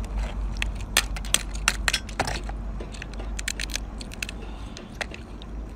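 Brown crab shell being cracked and pulled apart by hand: a scatter of sharp cracks and clicks, bunched about two seconds in and again past the middle, over a steady low rumble.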